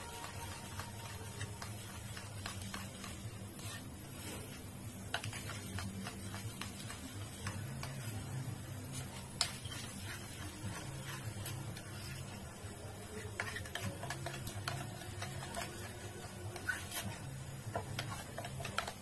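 Hands pressing and patting a breadcrumb-coated potato tikki into shape, with soft crumb rustling and scattered light clicks, the sharpest about nine seconds in, over a steady low hum.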